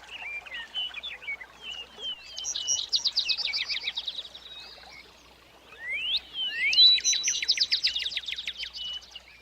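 A songbird singing two phrases of fast, even trills, about two seconds in and again about six seconds in. The second phrase opens with a couple of quick rising notes and is the louder. Softer twitters fill the gaps.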